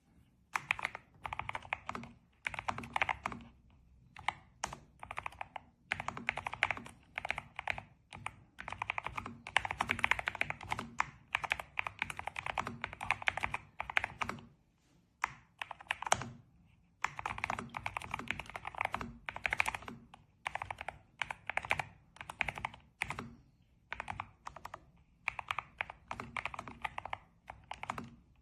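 Typing on a NuPhy Air75 V3 low-profile mechanical keyboard: runs of fast key clicks lasting a second or two, broken by short pauses.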